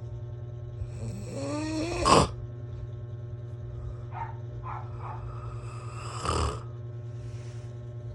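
A sleeping person snoring over a steady low hum. A loud, rising snore peaks about two seconds in, with softer snorts and another loud snore about six seconds in.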